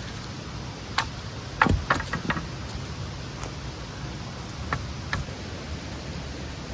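A steady rush of a small stream, with a few sharp knocks and clicks over it, the loudest a quick cluster about two seconds in.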